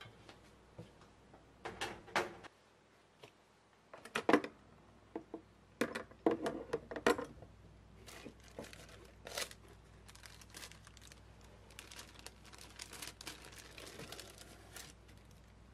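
Kitchen items being handled in a wooden drawer: a few knocks and clatters in the first seven seconds, then a plastic bag of paper doilies crinkling under a hand.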